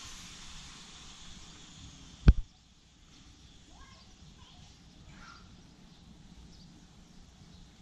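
A hiss fading away, then a single sharp, loud thump a little over two seconds in; after it, quiet outdoor background with faint bird chirps.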